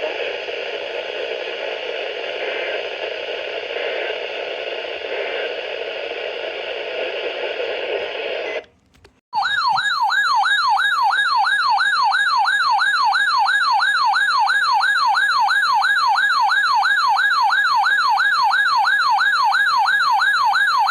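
Steady radio static hiss for about eight seconds, a brief dropout, then a loud electronic emergency alert siren warbling fast, about three sweeps a second up and down in pitch. The siren cuts off suddenly at the end.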